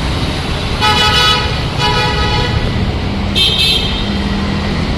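Vehicle horn sounding three short toots over a steady traffic rumble.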